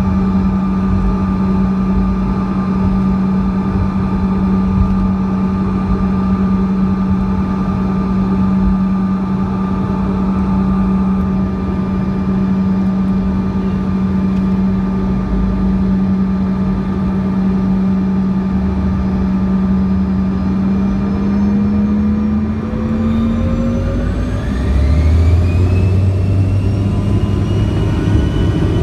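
Bombardier CRJ-200's twin General Electric CF34 turbofans heard inside the cabin: a steady engine whine and cabin rumble, then the engines spool up over a few seconds near the end with a rising whine and a deeper rumble.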